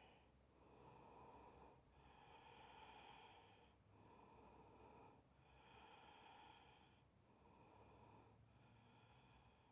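Near silence with faint, slow breathing: six long breath sounds in a row, in and out in turn, each lasting a second or so.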